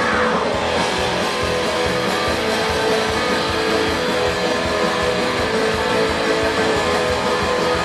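A live rock band playing a guitar-led song through a concert sound system, heard from the audience seats; the music runs steadily with strummed guitar to the fore.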